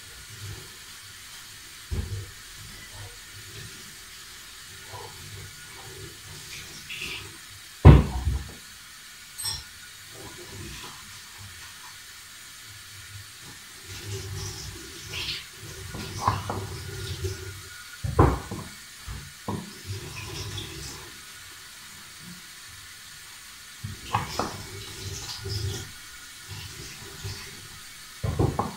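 Platform high heels knocking on a tiled floor, the loudest knock about eight seconds in, with stretches of squishing and crunching as the soles crush soft blueberry cake pieces. A steady hiss underneath.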